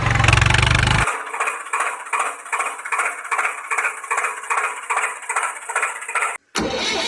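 Tractor engine sound effect: a deep engine running for about a second, then a lighter, rhythmic chugging at about three beats a second, with a brief dropout near the end before the deep engine sound returns.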